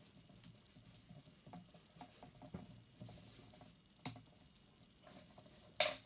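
Fingers handling the small metal and plastic parts of an angled 13-pin GK connector: faint scraping and small clicks throughout, a sharp click about four seconds in and a louder metallic click near the end.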